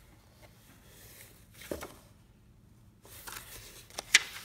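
Old paper certificates being handled and lifted by hand: paper rustling with light clicks, busier toward the end, and a sharp click near the end as the loudest sound.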